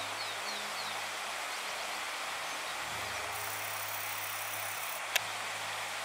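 Steady rushing of a mountain stream, with a single sharp click about five seconds in.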